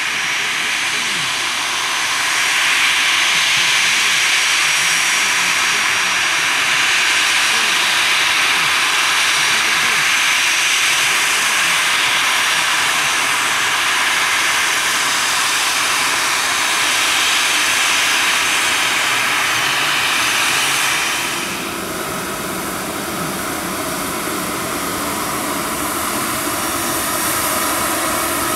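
Airbus A320-214's CFM56 turbofan engines running at taxi power: a steady jet hiss with a faint high whine. It grows a little louder about two seconds in and drops suddenly about three-quarters of the way through.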